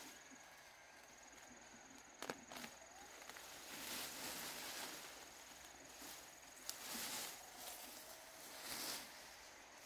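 A steady, high-pitched insect trill runs over soft rustling, with several louder swells of rustling or footsteps and two sharp clicks, one about two seconds in and one near seven seconds.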